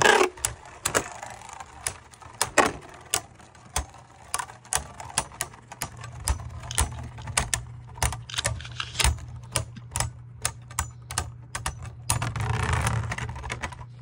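Two Beyblade Burst tops spinning and clashing in a plastic stadium: a loud hit at the start, then many sharp, irregular plastic clacks as they collide, with a steady low hum and a denser rattling stretch near the end as they spin down.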